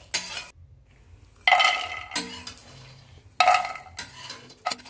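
Flat spatula scraping across a kadhai as roasted makhana (fox nuts) are scooped out, in two loud ringing scrapes about 1.5 and 3.5 seconds in. Near the end comes a quick patter of clicks as the nuts drop into a bowl.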